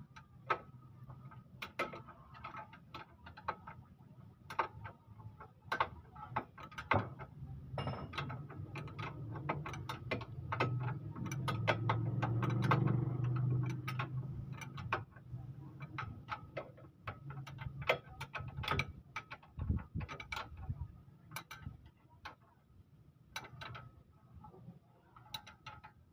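Ratchet wrench clicking in quick runs as a 19 mm bolt on a Toyota Avanza's front lower suspension arm is tightened. A low hum swells in the middle and is the loudest thing heard.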